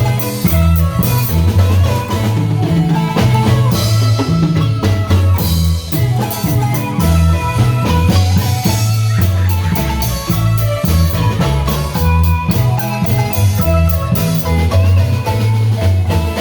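Marimba band playing a tune: mallet notes on the marimba over a repeating bass line, with drums keeping the beat.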